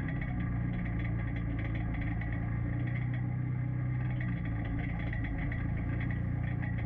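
UTV engine running steadily, with rattling and clatter from the vehicle.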